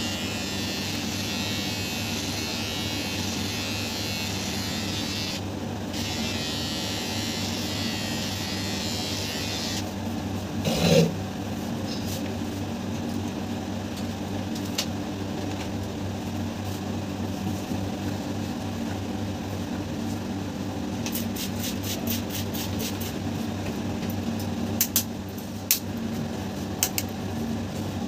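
Cordless electric hair clipper buzzing as it cuts hair, with a short break halfway through, then stopping about ten seconds in while a low steady hum carries on. A loud knock comes just after the clipper stops, and quick clicks come near the end.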